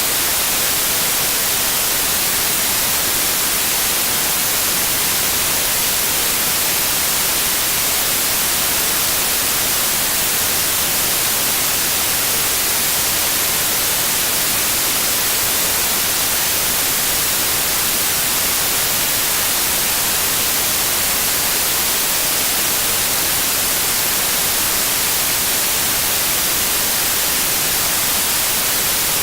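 Steady, unchanging electronic white noise hiss, brightest in the treble, with a faint 528 Hz tone mixed in beneath it.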